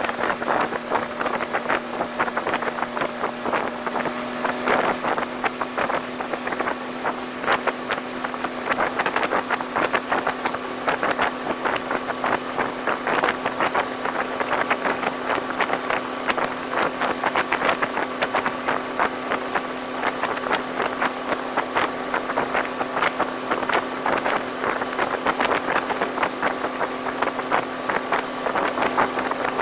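1985 Sea Sprite Continental Mark II motorboat running at a steady cruising speed: a constant engine hum under the rush of water and spray, with rapid slaps of the hull on the chop and wind on the microphone.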